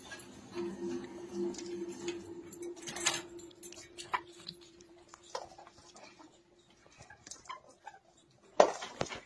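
Faint scattered clicks and ticks over a quiet steady hum that fades out, then a short louder clatter near the end.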